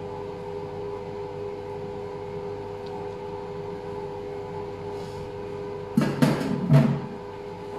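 A steady hum of a few held tones, broken about six seconds in by a short burst of loud metallic clatter and knocks as a stainless steel saucepan is put down.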